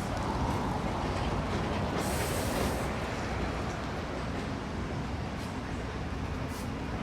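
City street traffic: a steady low rumble of vehicles, with a short hiss about two seconds in.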